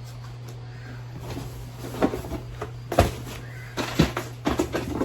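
Packaging being handled during a shoe unboxing: rustling with a run of sharp knocks and clicks, the loudest about 2, 3 and 4 seconds in, over a steady low hum.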